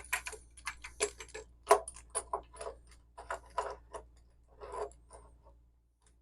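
Irregular metallic clicks and light knocks of plumbing parts being handled and fitted, about fifteen in five seconds, stopping shortly before the end.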